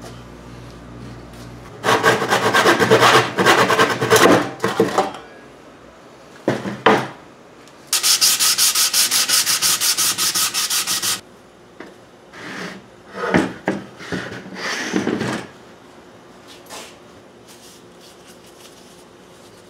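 Sandpaper rubbed quickly back and forth along the edge of a pine board, in several bursts of scraping strokes. The longest and loudest burst comes in the middle, and the strokes die away after it.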